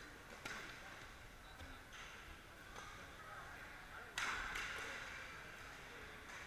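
Badminton rally: sharp racket hits on a shuttlecock, about one to two seconds apart, echoing in a large hall. The loudest is an overhead jump smash about four seconds in. Crowd chatter murmurs underneath.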